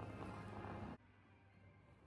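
Faint music playing in an ice rink over a low steady hum. About a second in, the level drops suddenly to a quieter hum.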